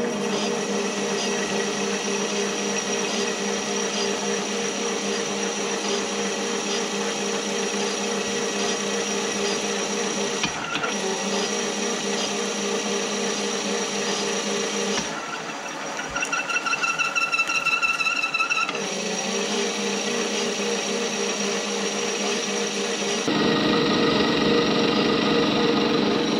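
Precision Matthews PM-1022V benchtop metal lathe running with a steady gear whine while a carbide insert tool cuts an aluminum wheel spacer. A little past the middle, a higher fluttering squeal from the cut lasts about three seconds.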